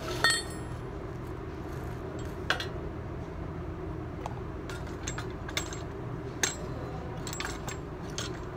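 Metal clinks and knocks from a coil spring, a screw-type spring compressor and a shock absorber being handled and fitted together: a few sharp strikes, the loudest with a short metallic ring just after the start, others at about 2.5, 5.5 and 6.5 seconds. A steady low hum runs underneath.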